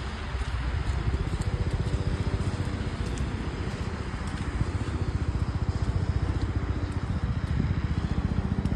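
Steady low outdoor rumble: road traffic noise mixed with wind buffeting the microphone.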